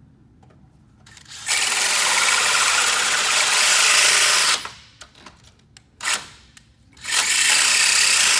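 Battery-powered drill spinning a hole saw as it cuts a hole, in two runs: one of about three seconds starting a second and a half in, then a short stop with a few clicks, then a second run near the end.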